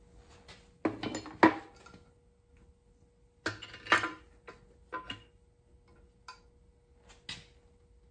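Metal clinks and knocks as a Kwik-Way portable valve seat cutter and its arm are shifted and set on the adapter plate of a Model A Ford engine block while the cutter is centered over a valve seat. The clinks come in a few short groups, loudest about a second and a half in and again about four seconds in.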